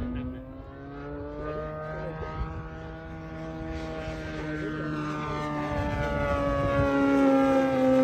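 Cassutt 3 m RC racer's EME 60cc single-cylinder two-stroke petrol engine with a canister muffler, driving a 22x10 propeller, droning in flight. It grows steadily louder as the plane closes in, its pitch easing down slightly in the last few seconds as it passes.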